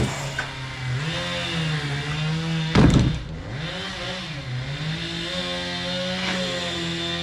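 Flooded chainsaw engine running roughly, its pitch wavering up and down, with a short loud burst about three seconds in.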